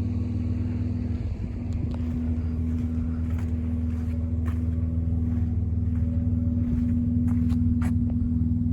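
A motor vehicle running steadily: an even, low hum with a few faint clicks.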